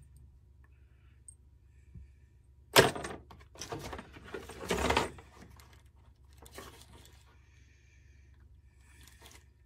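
Handling noises from a hand-held pressure/vacuum tester: a sharp knock about three seconds in, then a run of clatters and rattles from the gauge and its hose fittings for a couple of seconds, with a few lighter clicks near the end.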